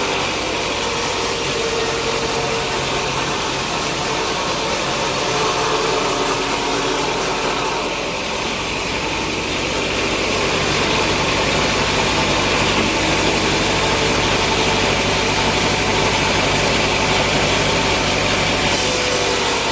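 Sawmill machinery running steadily, a continuous mechanical drone with a dense hiss and a few steady tones.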